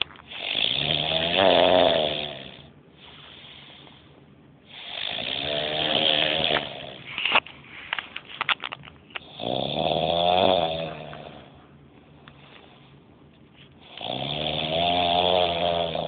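Heavy snoring: four loud, rasping snores on the in-breath, about four to five seconds apart, with quieter out-breaths between them. A brief run of clicks falls between the second and third snores.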